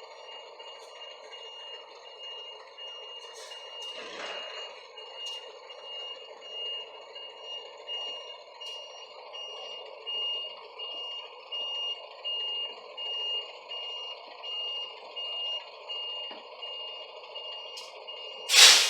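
Reversing alarm on a heavy vehicle, one steady high tone beeping over and over, over a steady hum. A sharp loud knock comes near the end.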